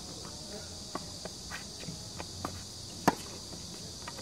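Tennis ball struck by racket strings during a rally: a loud crisp hit about three seconds in, with fainter distant hits or bounces around the first second. A steady high drone of insects runs underneath.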